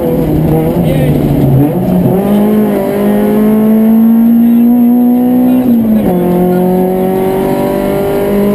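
Citroën Saxo rally car's engine heard from inside the cabin, driven hard on a stage. Its pitch wavers unevenly at first, then climbs steadily under power, drops with an upshift about six seconds in, and climbs again.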